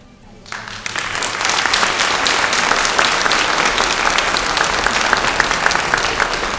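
Audience applauding, breaking out about half a second in and then keeping up a dense, steady clapping.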